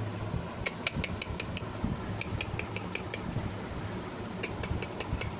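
Kittens scrabbling and play-fighting in a plastic basket. Three runs of quick, sharp clicks, about five a second, sound over a steady low hum.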